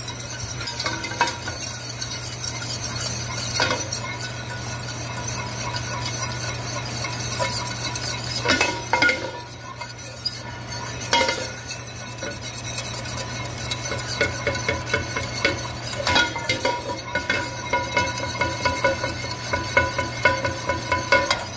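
Wire whisk beating a cooled roux into hot orange gravy in a stainless steel pan to thicken it: the wires clink rapidly against the pan, busier in the second half, with a few sharper knocks against the pan's side.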